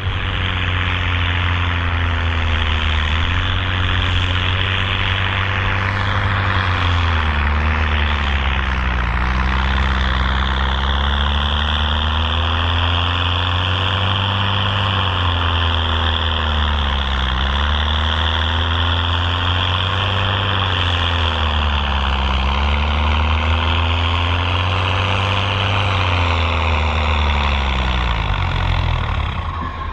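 Pulling tractor's engine running hard under load, its pitch sagging and recovering several times, then falling away near the end.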